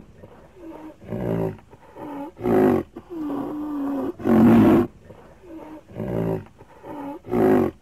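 A string of wild-animal roaring calls, one about every second, with a louder call roughly every two seconds; some calls bend up and down in pitch.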